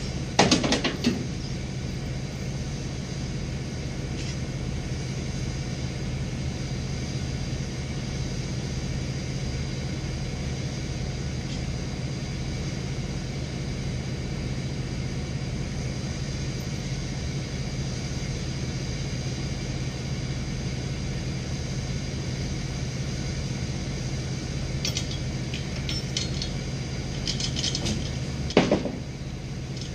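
Bucket truck engine running steadily, with a sharp knock about half a second in and another near the end, and a few lighter metallic clicks just before it.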